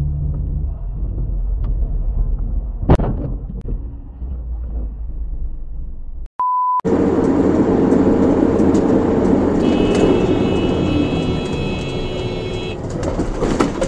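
Dashcam sound of driving cars: a low engine and road rumble with one sharp knock about three seconds in, then a short steady beep. Loud road and wind noise follows, with a steady high tone held from about ten to thirteen seconds in.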